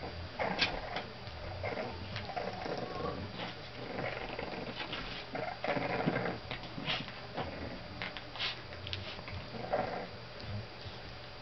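Olde English Bulldogge puppies play-wrestling: small puppy growls and yelps in irregular bursts, the strongest about halfway through, with paws scuffling on the floor.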